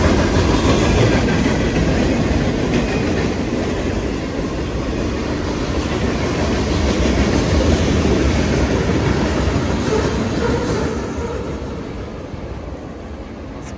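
Union Pacific freight train's cars rolling past close by: a loud, steady rumble of steel wheels on the rails, which fades near the end as the train moves away.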